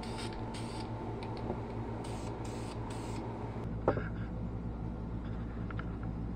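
Aerosol can of black ceramic spray paint hissing in several short bursts over the first three seconds or so, with a steady low hum behind. A single sharp knock a little before four seconds in, then a few light clicks near the end.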